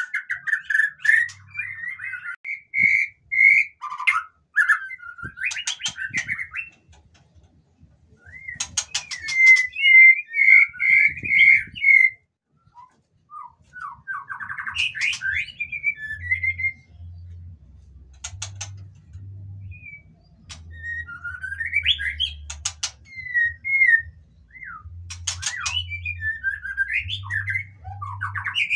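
White-rumped shama singing a varied song of rich whistled phrases and glides, broken by short harsh rattling notes, with brief pauses between phrases. A faint low hum runs under the second half.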